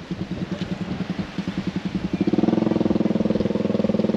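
Small motorcycle engine running with a fast, even pulsing note, growing louder about two seconds in as it draws near.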